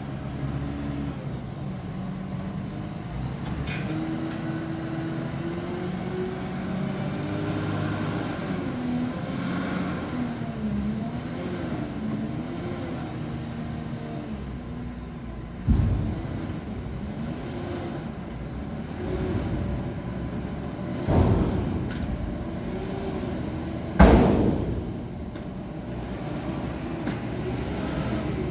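JCB 435S wheel loader's diesel engine working hard, its note rising and falling again and again as it climbs and pushes on the silage clamp. Three heavy knocks in the second half, the last the loudest.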